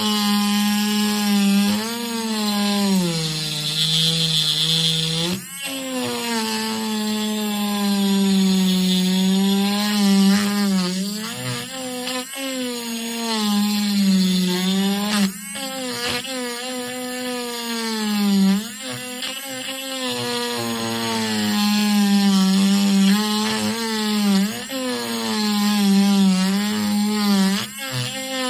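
Handheld pen-style electric grinder whining as its bit grinds into a cured epoxy resin coaster. The motor's pitch sags under pressure and recovers, with three brief dips where the grinding lets up.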